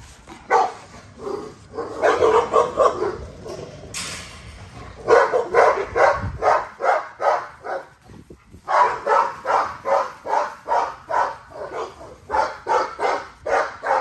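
American bully dogs barking in quick, even yaps, about three a second, in several bouts with short pauses between them.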